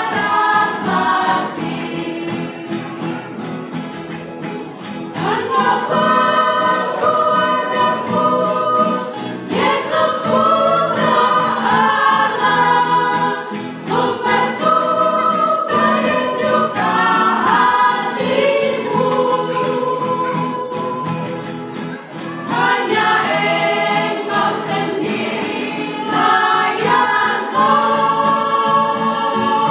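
Women's vocal group singing together in parts, several voices at once, in phrases that pause briefly every few seconds.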